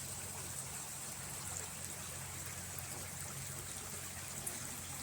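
Steady rush of running floodwater, an even hiss with no break, over a low steady hum.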